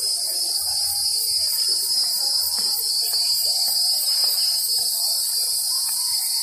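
Loud, steady chorus of insects shrilling in the park trees: a high drone with a faint, even pulsing.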